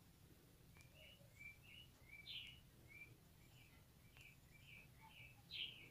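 Near silence with faint bird chirps in the background: a string of short, high chirps repeating every fraction of a second.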